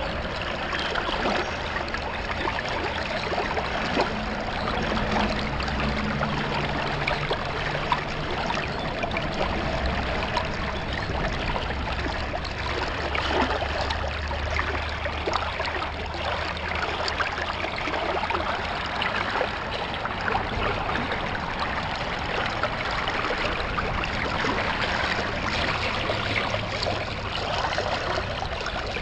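Water rushing steadily through a Gold Hog sampling sluice, splashing over the riffle matting where gravel is caught.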